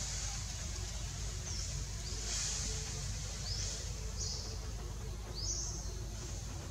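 A bird chirping: short, high-pitched chirps that rise in pitch, repeated about once a second, over a steady low rumble.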